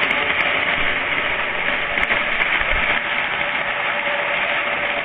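Postwar Santa Fe diesel model train running on its track: a steady rushing rumble of wheels and motor, with a faint steady hum.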